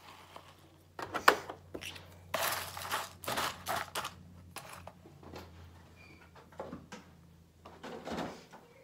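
A sharp knock about a second in, then a spoon stirring cereal and milk in a large bowl: several quick scraping, rustling strokes, after which it goes quieter.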